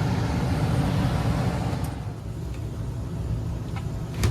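Furnace and air-conditioning system running with a steady low mechanical hum. A hiss over it drops away about two seconds in, and there is a sharp click near the end.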